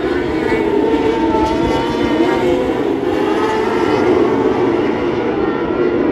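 A pack of non-wing micro sprint cars racing, several high-revving engines running at once, their pitches wavering up and down against each other.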